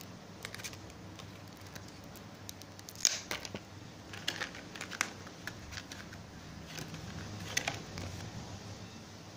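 Clear plastic packaging being handled and opened: scattered crinkles and sharp crackling clicks, the loudest about three seconds in.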